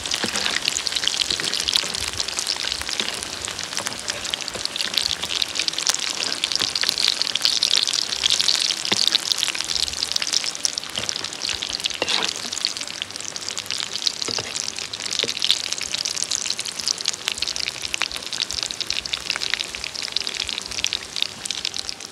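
Bread rolls deep-frying in hot oil in an iron wok: a steady crackling sizzle with constant fine spitting and a few louder pops.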